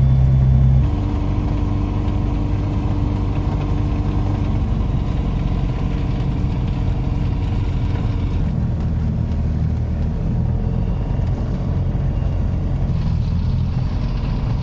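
An ultralight aircraft's engine running steadily, heard inside the cockpit as a dense drone. About a second in it gets somewhat quieter and more even, then holds steady.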